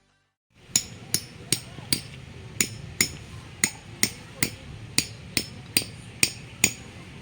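A hammer striking metal repeatedly at a steady pace, about two to three blows a second, each with a sharp metallic ring, starting about half a second in.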